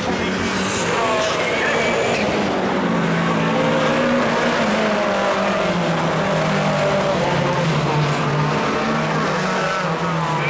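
Rallycross race cars driven hard through a bend one after another, their engines revving up and down in pitch over a continuous rush of tyre and road noise.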